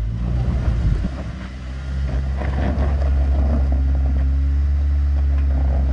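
Off-road 4x4's engine running steadily at low revs while crawling up a rocky climb. About two seconds in, the tyres crunch over stones.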